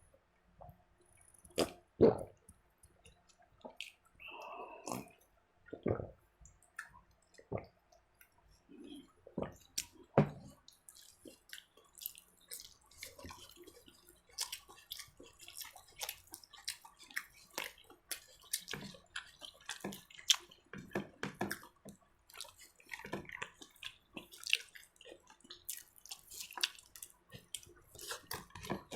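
Eating sounds from a shared rice meal: irregular wet clicks, smacks and chewing, sparse at first and coming thick and fast from about a third of the way in.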